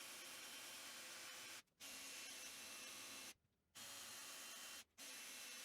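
Faint steady hiss with no distinct events, broken three times by brief dead-silent gaps that start and stop abruptly.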